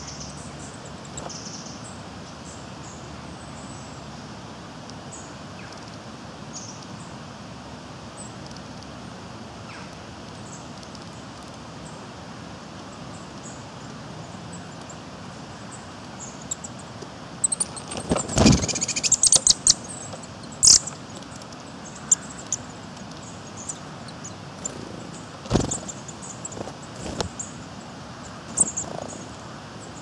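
Small woodland birds, a nuthatch and a coal tit, at seed on a wooden plank: a quick flurry of wingbeats and bill taps on the wood a little past halfway, then a few single taps. Faint high bird calls sound over a steady background hiss.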